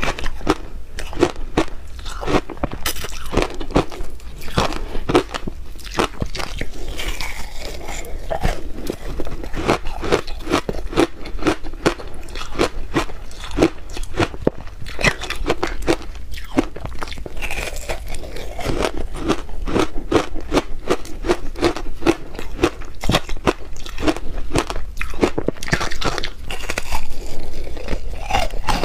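Close-miked crunching and chewing of hard frozen ice, a rapid run of sharp crunches bitten and ground between the teeth.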